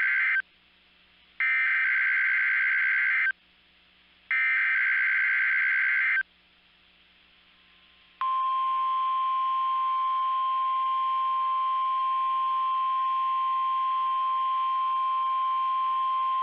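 NOAA Weather Radio SAME digital data bursts: the tail of one buzzing burst and two more, each about two seconds long. After a short gap comes the steady single-pitched 1050 Hz warning alarm tone, sounded as the weekly test of the radio's warning alarm feature.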